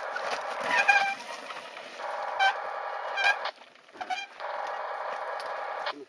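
Mountain bikes rolling down a dirt trail: a steady buzzing rattle of tyres and frames, with short high squeals from the brakes about a second in and twice more a little past halfway.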